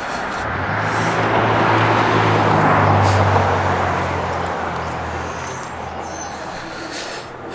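A motor vehicle driving past on the road, its engine and tyre noise swelling to loudest about three seconds in and then fading away.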